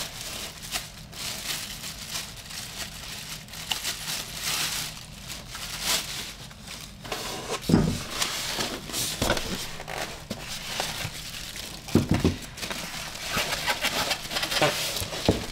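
Clear plastic packing bags crinkling and rustling as the microscope parts are lifted out and unwrapped, with a couple of dull knocks about eight and twelve seconds in.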